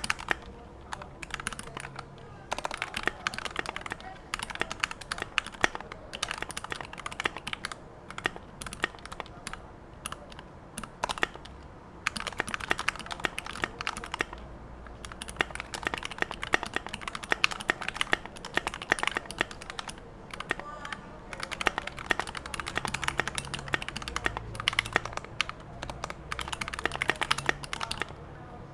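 Typing on a TOFU68 mechanical keyboard with Gateron Yellow linear switches lubed with Krytox 205g0, mounted on a stainless steel plate. The keystrokes come fast and continuous, with a few brief pauses.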